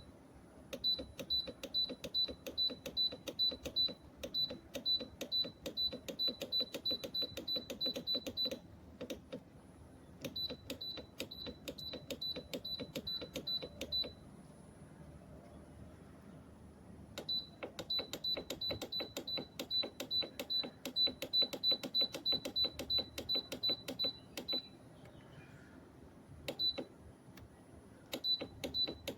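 Rapid series of short electronic beeps, each with a click, about four to five a second, in runs of several seconds broken by pauses.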